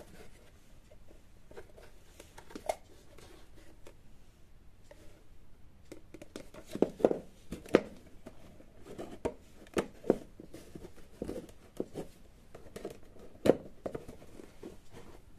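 Hands handling a small diorama garage model on a wooden table: scattered irregular taps, knocks and light scrapes as it is turned and reached into. The handling is busier in the second half, with the sharpest knock near the end.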